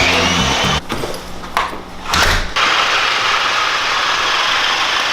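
Small quadcopter drone's propellers whirring steadily, with background music over the first couple of seconds.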